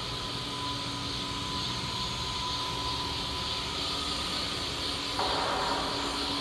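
Steady machinery hum and hiss of a running Naxos-Union CNC cylindrical grinder, with a thin steady whine in it. About five seconds in, a louder hiss starts abruptly and holds.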